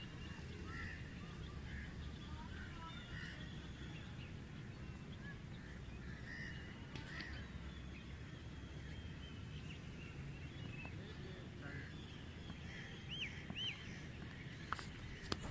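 Open-air ambience: scattered bird chirps and calls over a low wind rumble, with two short arched calls near the end. A couple of sharp knocks come just before it ends.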